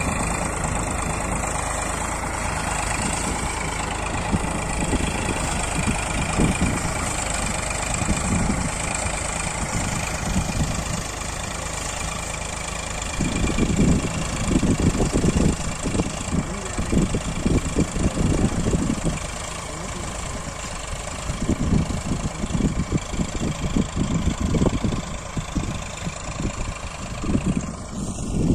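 Eicher 485 tractor's diesel engine running steadily, with uneven low rumbling surges from about halfway through.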